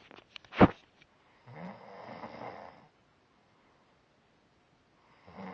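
Snoring: a sharp knock about half a second in is the loudest sound, then one long snoring breath of over a second, a pause of a couple of seconds, and another snore starting near the end.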